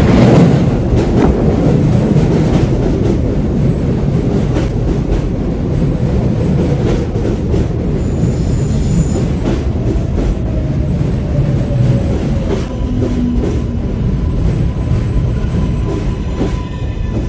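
A New York City subway train running past on elevated track, with wheels clicking over rail joints and a faint wheel squeal.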